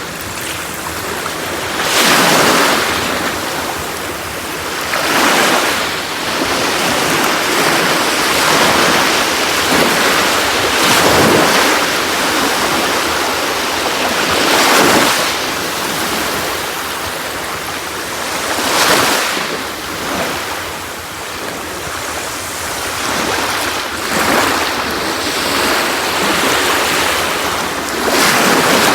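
Sea waves breaking and washing up on a beach, a steady rush of surf that swells every few seconds as each wave comes in.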